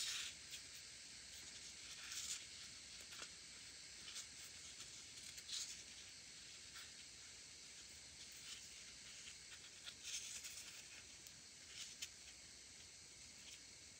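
Faint, soft swishes of a lint-free nail wipe damp with gel cleanser rubbing over gel nails, a few scattered strokes over a steady faint hiss.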